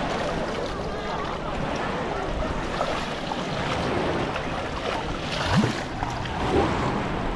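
Sea waves washing on a beach with wind on the microphone, steady throughout, with faint voices in the background.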